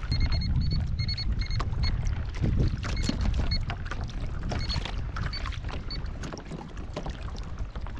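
Wind rumbling on the microphone and water slapping and splashing against a plastic sit-on-top kayak's hull. A run of short high beeps sounds several times in the first two seconds, with a few more later.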